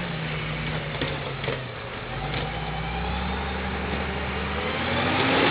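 Volvo BM L90 wheel loader's diesel engine running under work, its revs sinking and then climbing and getting louder toward the end, with a few faint knocks.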